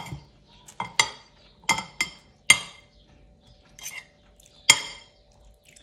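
Metal cutlery clinking against a plate while eating, about seven sharp clinks at irregular intervals, each ringing briefly.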